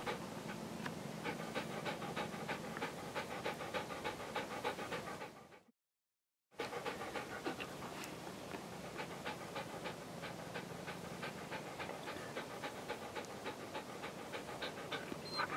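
Rough collie panting rapidly with its mouth open, about five quick breaths a second, the sound cutting out completely for under a second about six seconds in.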